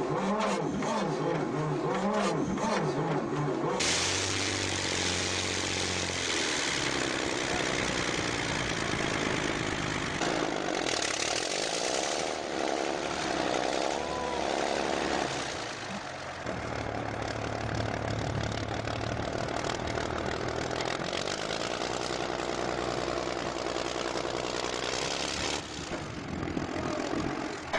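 A Soviet WWII heavy tank destroyer's V12 diesel engine, first started after some 60 years standing, catches about four seconds in and then runs loudly and steadily, with a brief drop in level near the middle.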